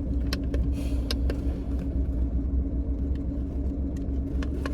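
Steady low rumble and electrical-sounding hum, with scattered light clicks and knocks.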